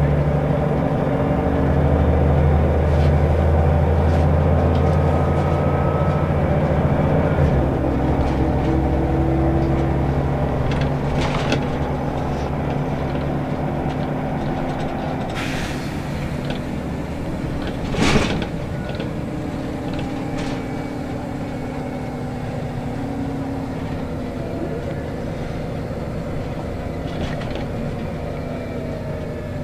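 Scania L94UB three-axle bus driving, heard from inside the passenger cabin: the diesel engine pulls hard, and its note changes abruptly about seven seconds in as the ZF automatic gearbox shifts. After that the bus cruises with road noise. A short hiss comes about fifteen seconds in, and a single loud thump about eighteen seconds in.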